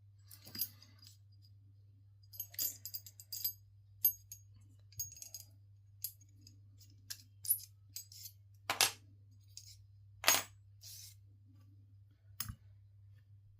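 Small metal parts and tools clicking and clinking on a workbench while an RC car chassis is taken apart: a dozen or so scattered light taps, some with a brief high metallic ring, over a low steady hum.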